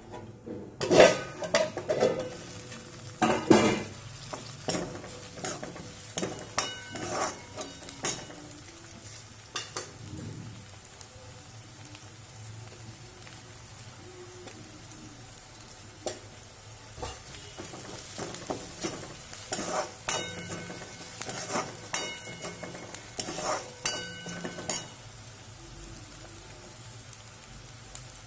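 Chopped onion, green chillies and curry leaves sizzling in oil in an aluminium kadai, stirred with a steel spoon that scrapes and clinks against the metal pan. The clinks ring briefly and come in clusters, loudest in the first few seconds.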